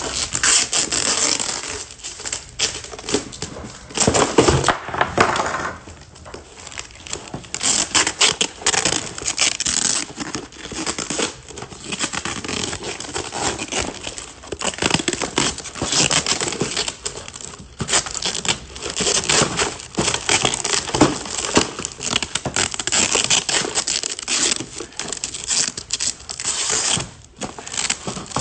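Packing tape pulled off the roll in repeated long rips and torn off, as a cardboard box is wrapped shut, with crinkling and handling of the box between pulls.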